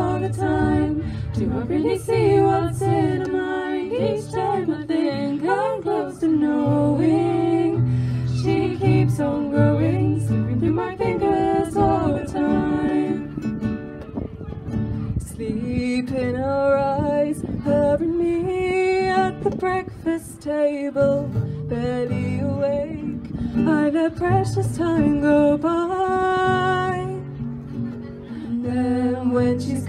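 Young female voices singing a song to acoustic guitar accompaniment, amplified through PA speakers.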